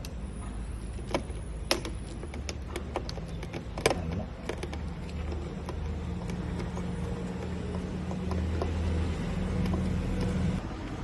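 Sharp clicks and small knocks of a Torx driver and lock parts being worked at a Mercedes W164 door, several in the first few seconds, over a steady low hum that stops shortly before the end.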